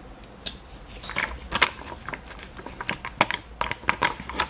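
Foam stickers being peeled off their backing sheet and handled over paper: irregular crinkling and small ticks and clicks.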